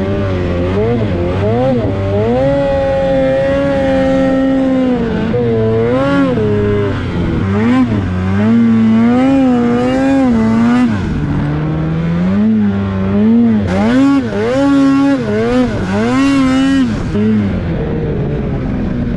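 Two-stroke Polaris mountain snowmobile engine running hard under constantly changing throttle, its pitch rising and falling again and again as the sled is ridden.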